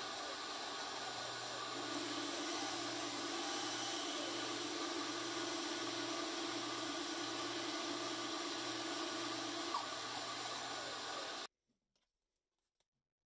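Bandsaw running while its blade cuts straight across a small wooden block for an inlay. It makes a steady machine noise with a low pulsing hum, and a steadier tone joins about two seconds in and drops out shortly before the end. The sound cuts off abruptly near the end, leaving near silence with a few faint ticks.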